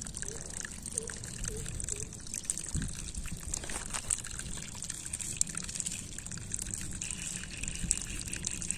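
Shallow muddy paddy-field water trickling and dribbling as a hand scoops snails out at the water's edge, with many small clicks of shells and grit.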